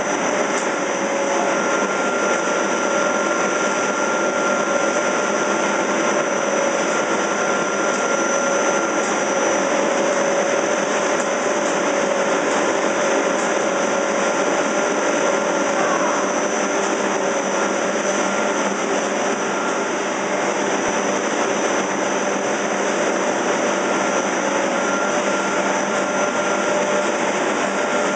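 Machinery of a fish feed and pet food processing line running continuously: a loud, steady whirring noise with a few constant tones over it.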